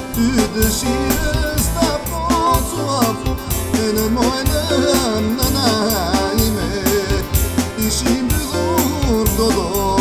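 Song played by a band: a wavering, ornamented melody line over a steady drum beat and bass.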